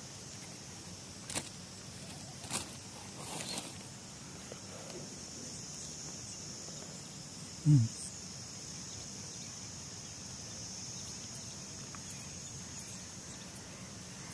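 Steady high-pitched insect buzzing, like cicadas or crickets, with a few sharp clicks in the first few seconds from handling the fishing rig and a brief loud low sound about halfway through.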